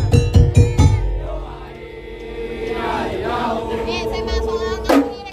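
Madurese ul-daul (tongtong) ensemble music: the drum and wood-block beat stops about a second in, leaving a held note with voices singing over it, then one sharp hit near the end.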